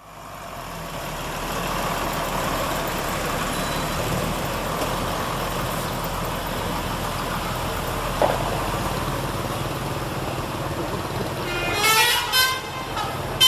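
Steady noise of a bus running, then about 12 seconds in a multi-tone 'telolet' musical bus horn starts playing a quick run of changing notes.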